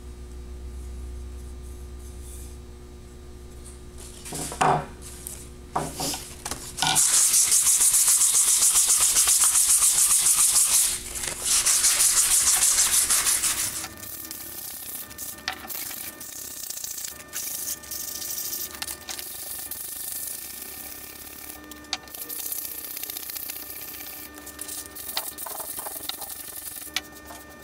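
Sandpaper rubbed by hand in quick back-and-forth strokes along an old wooden hammer handle. The rasping is loud for several seconds near the middle, then turns to lighter, quieter rubbing with scattered small taps.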